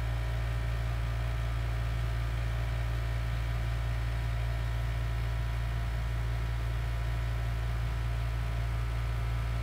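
Steady low hum with an even hiss over it and a few faint steady tones above, unchanging: background machine or electrical hum in the room.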